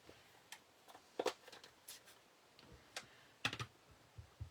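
Several light clicks and taps, spread unevenly, as small craft supplies are handled on a desk while a yellow ink pad is fetched.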